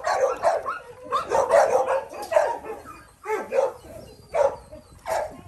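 Dogs barking and yipping in short sharp bursts: a quick run of barks in the first couple of seconds, then single barks about once a second.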